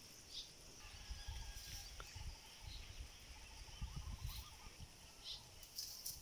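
Quiet outdoor ambience: faint, short high chirps repeating throughout, with low rumbling on the microphone that comes and goes from about a second in to past the middle.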